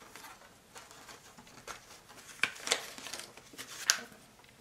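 Hands handling a plastic UV phone-sanitizer case: a series of light clicks and taps with some rustling, the sharpest click near the end.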